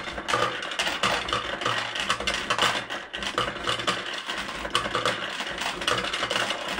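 'Bully for You' fruit machine clattering, a dense run of mechanical clicks and rattles.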